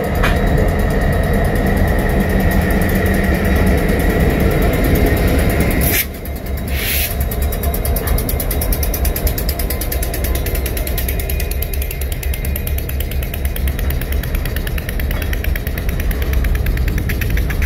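Diesel locomotive of a freight train running as the train pulls away, with a steady low rumble. About six seconds in the sound changes abruptly, with two short noisy bursts about a second apart.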